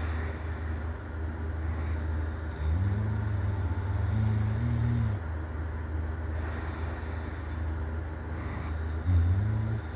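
A sleeping person snoring: a droning snore of about two seconds that starts near the third second, and a shorter one near the end, over a steady low hum.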